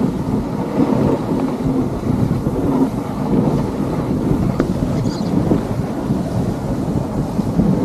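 Dog sled running along a packed snow trail: a steady low rumble from the runners grinding over the snow, mixed with wind buffeting the microphone.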